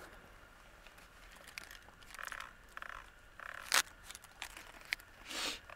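Faint handling sounds of a catfish being unhooked: small clicks, scrapes and rustling, with one sharp snap about four seconds in.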